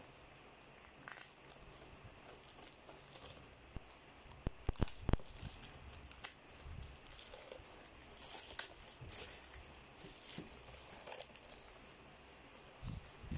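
Plastic mailing wrap on a parcel being cut with scissors, then torn and peeled off a cardboard box, crinkling and rustling in fits and starts. A cluster of sharp clicks about five seconds in is the loudest part.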